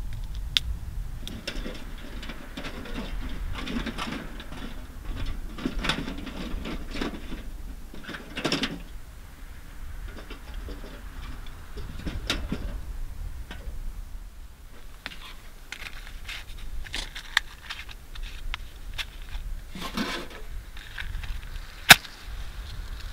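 Scattered rustling and light knocks over a low steady rumble, then a wooden match struck once, sharply, near the end and flaring alight.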